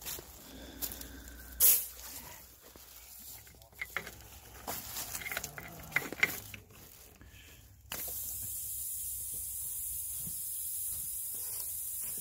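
Compressed air hissing steadily from an air hose held on the valve of an old tube-type truck tire, starting suddenly about eight seconds in; the men take it for air escaping between the tire and its inner tube. Before that, scattered clicks and rustling in dry leaves, with one sharp knock about two seconds in.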